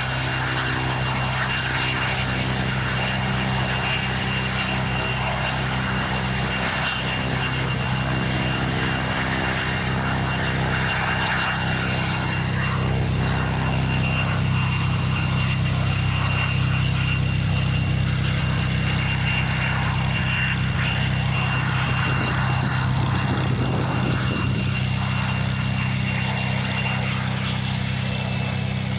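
Cessna 210's six-cylinder piston engine and propeller running steadily at low power, an even drone, with a thin high whine held underneath.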